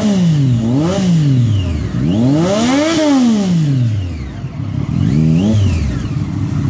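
Sportbike engine revved in throttle blips while standing still, over other motorcycles idling. There are four revs: two quick ones at the start, one long climb and fall in the middle, and a short one near the end.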